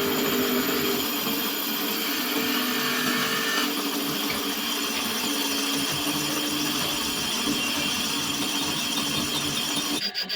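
A power tool running steadily, then switched off near the end and spinning down in fading pulses.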